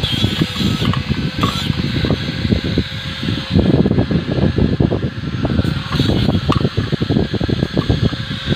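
Wind buffeting the microphone: a low, uneven rumble that comes in gusts, strongest from about three and a half to five seconds in and again from about six to seven and a half.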